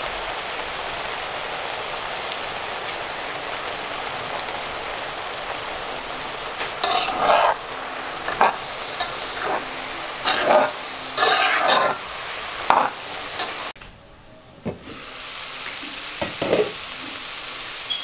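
Chopped onion, carrot and celery sizzling steadily in olive oil in a pot, being sweated until half done. From about six seconds in a spatula scrapes and stirs against the pan in a run of strokes. The sound drops out briefly near the end, then the sizzling returns with a couple more strokes.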